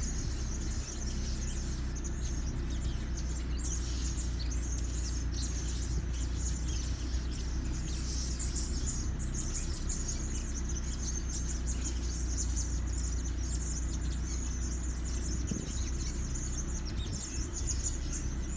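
A flock of caged blue-crowned hanging parrots (serindit) chirping without a break, many high, thin calls overlapping, over a steady low hum.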